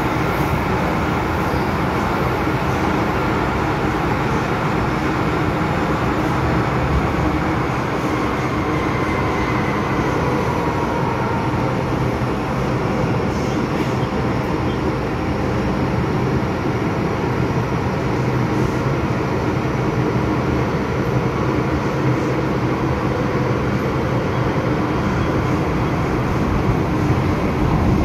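MTR M-Train electric multiple unit running at speed, heard from inside the passenger car: a steady rumble of wheels and running gear. A faint whine glides in pitch about ten seconds in.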